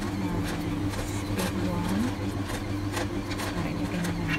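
Stand mixer motor running with its dough hook kneading bread dough: a steady hum whose pitch dips and rises again as the hook drags through the stiff dough, with scattered light knocks.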